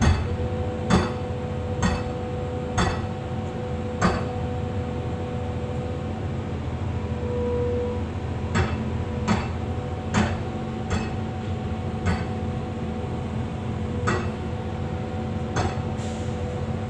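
Hammer blows ringing on the steel pins of an excavator's attachment linkage, struck about once a second with a pause of a few seconds in the middle, during a bucket change. Under them the excavator's engine idles with a steady hum and a held tone.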